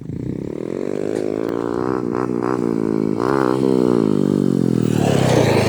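Carbureted 1995 Harley-Davidson Sportster V-twin engine running, its pitch sagging and then rising and falling a few times with the throttle, ending in a rougher burst near the end.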